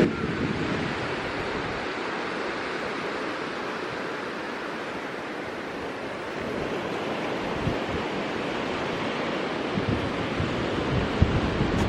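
Surf washing steadily onto a sandy beach. Wind buffets the microphone with a few low gusts near the end.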